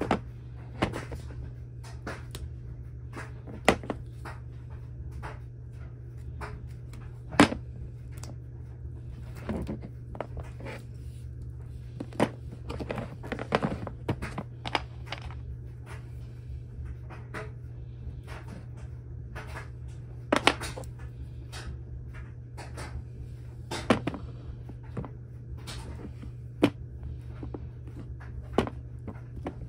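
Irregular clicks and knocks of copper cable lugs, battery cable and a hand cable cutter being handled on a plastic tray, over a steady low hum.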